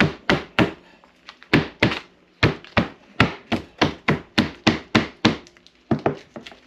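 Wooden meat tenderizer mallet pounding raw steak on a plastic cutting board: a run of dull blows, about three to four a second, with a short break about a second in.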